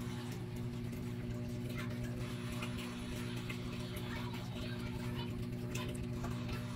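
Faint, scattered light ticks of a thin knife blade touching the cutting board as it scores a peeled mango cheek into strips, over a steady low hum.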